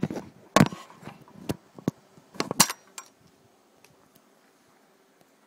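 Several sharp knocks and metallic clinks in the first three seconds, the last one ringing briefly, then only a faint steady room hum.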